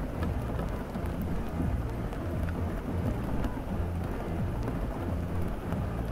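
Steady rain with a deep, continuous low rumble like distant thunder, scattered with small sharp ticks, over faint music underneath.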